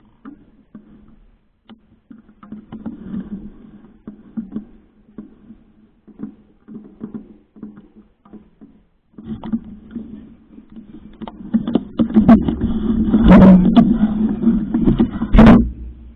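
Handling noise around a bicycle-mounted camera as mountain bikes are moved and lifted: scattered knocks and rattles. Over the last four seconds it becomes loud, dense clattering with two sharp knocks.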